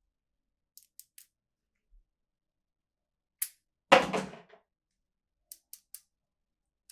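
Toys and their packaging being handled: a few light plastic clicks, then a single louder knock with a brief rattle about four seconds in, then three more light clicks.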